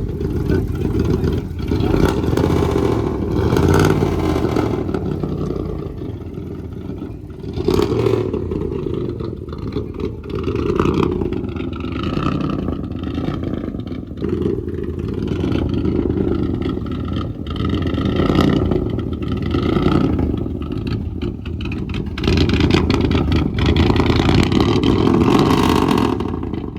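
Old Ford truck's engine running rough with a chopping, uneven beat, its revs rising and falling. The roughness is put down to low compression rather than the ignition coils.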